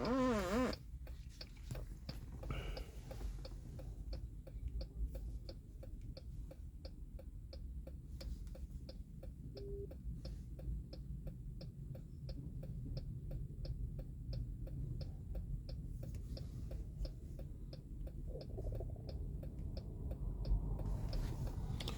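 Hazard flasher ticking inside a 2017 Chrysler Pacifica's cabin, an even click about twice a second while the hazard lights are switched on.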